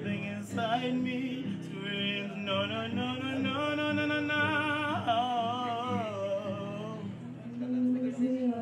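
Singing with wavering held notes and sliding pitch over a strummed acoustic guitar.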